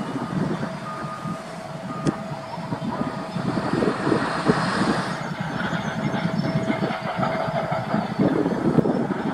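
Steady low rumble of distant machinery outdoors, with a faint steady hum and a few short high beeps between about one and three seconds in.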